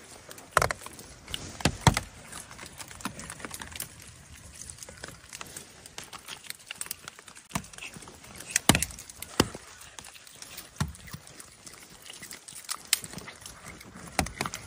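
A cat chewing food, with irregular wet crunching clicks, a few of them sharper and louder than the rest.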